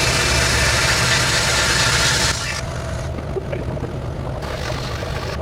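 Sandblasting cabinet: the blast gun hisses with compressed air and abrasive, then cuts off abruptly about two seconds in, leaving the steady hum of the cabinet's vacuum running.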